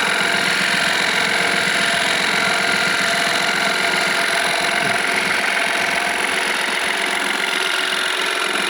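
Car engine idling with an unusual fast ticking rattle that appears at start-up. Its cause is undiagnosed: the mechanic cannot yet tell whether it comes from inside the engine or from something outside it.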